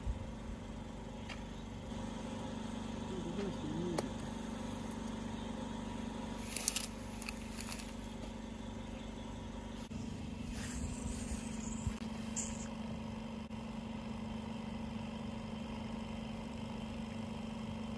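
An engine running steadily at idle, a constant low hum, with brief scraping noises about seven and eleven seconds in.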